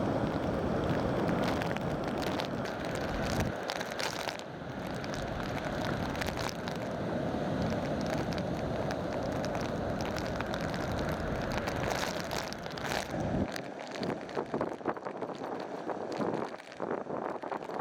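Storm-driven surf breaking, with strong wind buffeting the microphone as a heavy rumbling rush. The low rumble drops away about three-quarters of the way through, leaving a crackly hiss of surf and wind.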